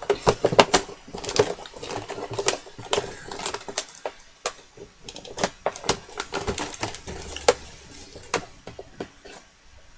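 Scissors cutting at the packing tape on a cardboard toy box as it is handled, giving a run of irregular sharp clicks, snips and taps.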